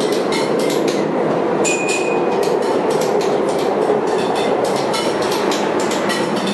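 Lisbon Metro train running, heard from inside the carriage: a steady rumble with a rapid clatter of wheels over the rails, several clicks a second. A brief high tone sounds about two seconds in.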